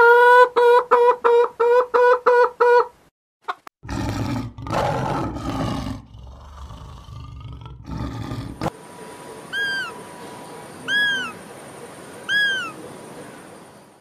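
A hen cackling in a quick run of about ten clucks, then an African lion roaring for several seconds, loud at first and then fading. After that come three short, evenly spaced arched calls over a faint steady hum.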